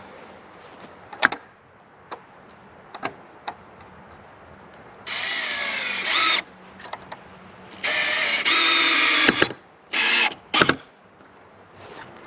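Cordless drill driving screws in four bursts: two runs of a second or more, the pitch falling during the first, then two short ones. A few sharp clicks and taps come before them.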